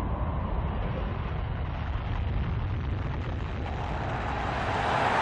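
Deep, rumbling boom dying slowly away after the crack of a race start, a cinematic sound effect. A rushing roar rises near the end.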